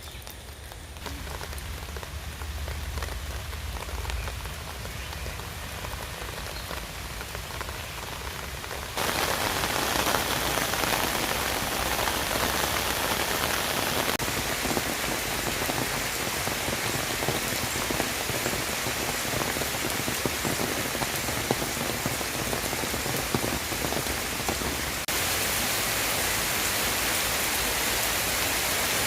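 Rain falling steadily: a lighter patter at first, then abruptly a much louder, denser hiss of rain about a third of the way in.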